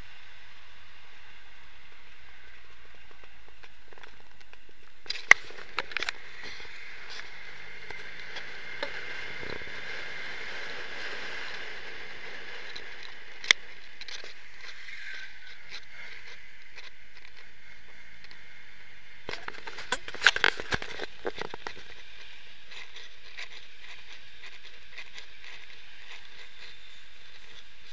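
Steady hiss of wind and road noise on a camera mounted outside a moving car, with no engine note coming through. Short clusters of sharp knocks and rattles come about five seconds in and again around twenty seconds, with a single sharp click between them.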